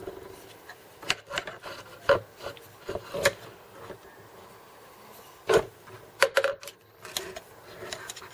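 Handling noise from a carbon fiber delta-arm rod and small hardware being moved about on a 3D printer bed: scattered short knocks and clicks with light rubbing between them.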